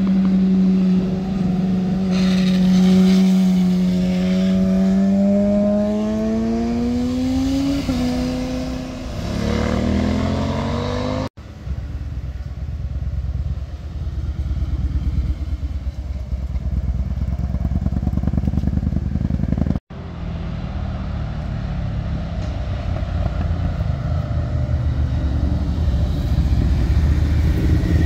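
Motorcycles riding through a hairpin bend one after another. First a sport bike holds an engine note that sinks slowly, then climbs sharply as it accelerates out of the bend. After two sudden cuts, heavy touring cruisers pass with a lower, pulsing engine sound that swells near the end.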